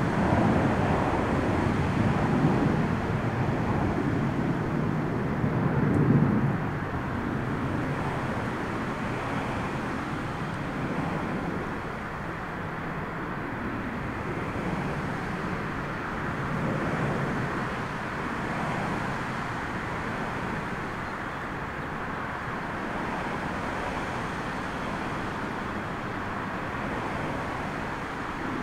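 Storm wind buffeting the microphone as a low, gusty rumble, strongest in swells during the first six seconds and then easing to a steadier rush.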